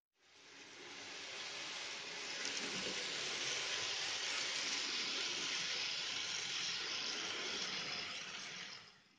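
N gauge model train running along the track, a steady hissing rush of wheels and motor that swells in over the first couple of seconds and fades out near the end.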